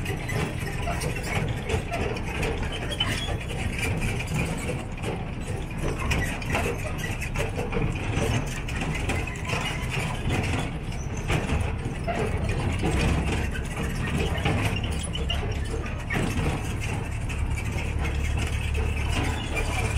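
Resort shuttle train, a road-going tourist train, rolling along heard from on board: a steady low engine rumble with the open carriages rattling and clicking throughout.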